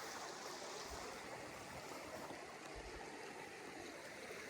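A creek running with a steady rushing flow.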